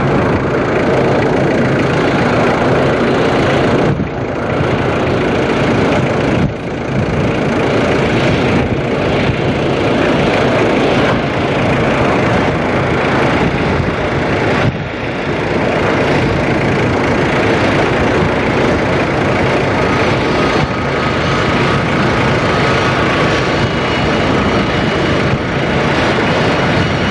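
Loud, steady jet-engine noise on an airfield flight line, with a thin high turbine whine coming in over the last several seconds as a C-17 Globemaster III taxies near.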